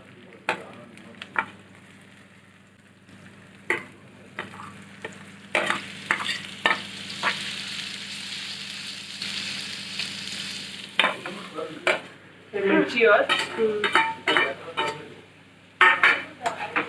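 Chopped onions frying in hot ghee in a pan, sizzling, for a dal tadka. The sizzle swells about five seconds in and fades after about eleven seconds, with sharp clicks and scrapes against the pan throughout.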